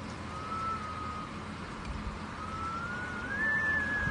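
Hurricane wind whistling: a thin high tone comes in briefly, fades, then returns about two seconds in and rises slowly in pitch, over a steady rush of storm noise.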